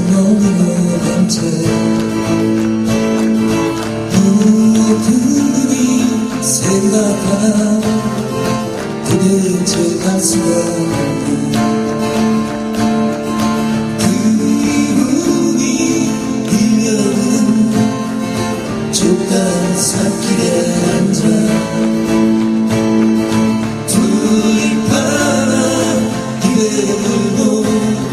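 A live song: a singer's voice over acoustic guitar accompaniment.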